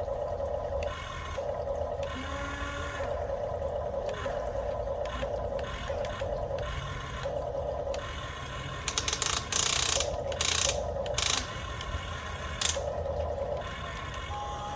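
Small electric gear motors of a toy remote-control excavator whining in short runs that start and stop every second or so. About nine seconds in come a few louder rasping bursts.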